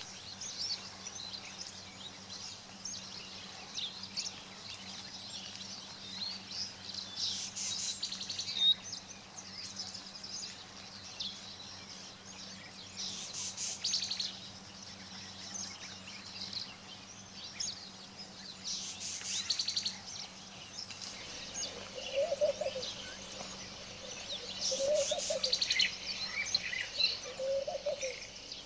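Wild birds chirping and calling in a busy chorus, with trills swelling every five or six seconds. In the last several seconds a lower, short call repeats three times, a couple of seconds apart.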